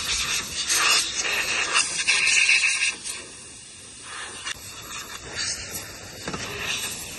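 Compressed-air blow gun on a coiled air hose hissing in blasts as it blows loose debris out of an RV refrigerator's rear compartment. The longest, loudest blasts come in the first three seconds, followed by a few shorter bursts.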